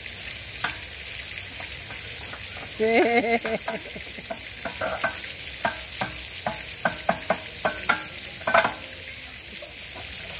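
Playground merry-go-round with duck seats turning on its central pivot, clacking irregularly with many sharp clicks over a steady hiss. The clacking makes a bystander wonder whether the ride is broken.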